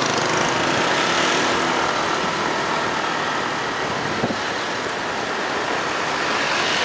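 Motor scooter riding along a city street: its small engine running steadily at road speed under a dense rush of road and wind noise, with other traffic around. A brief sharp tap about four seconds in.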